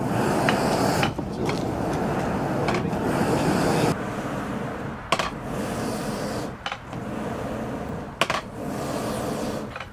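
Hand-pumped wooden bellows blowing air into a clay bloomery furnace during an iron smelt, making a steady rush of forced air and fire. The rush briefly dips between strokes, about every second and a half in the later part.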